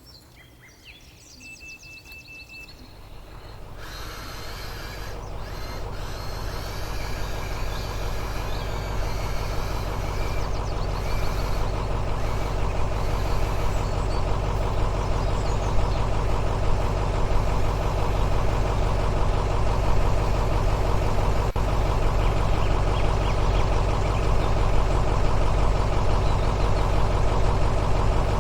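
Steady diesel-like engine sound of an excavator running. It grows louder over the first seven or eight seconds, then holds steady.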